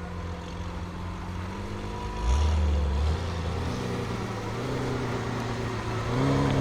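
BMW M5 F90's twin-turbo V8, fitted with a SuperSprint exhaust, running at idle with a steady low exhaust note. About two seconds in, a short, louder and deeper burst of exhaust lasts under a second.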